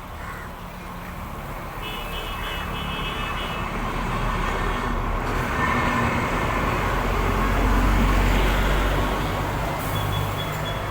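Road traffic: a motor vehicle's engine and tyre noise swelling to a peak about eight seconds in as it passes close by, then easing off.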